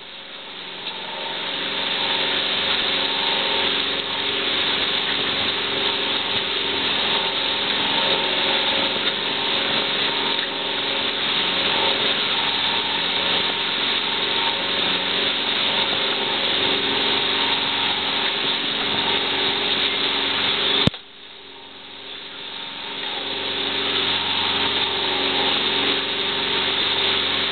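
Fishing boat's engine running steadily, with several steady tones under a loud hiss. A sharp click about twenty seconds in cuts the sound down, and it builds back up over the next few seconds.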